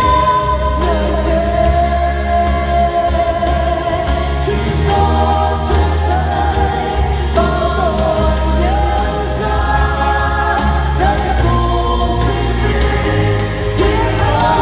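A woman and two men sing a Vietnamese worship song together through handheld microphones, held notes with vibrato, over amplified accompaniment with a steady strong bass.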